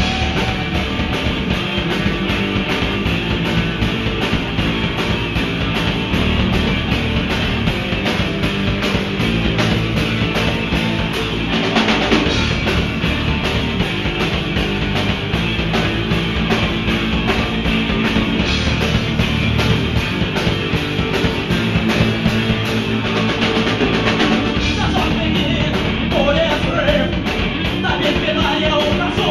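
Live rock band playing at full volume: distorted electric guitars, bass and a drum kit with a steady cymbal beat. A male singer's voice comes in near the end.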